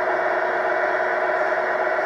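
Tamiya Grand Hauler RC truck driving while towing a loaded trailer: a steady mechanical whir made of several held tones.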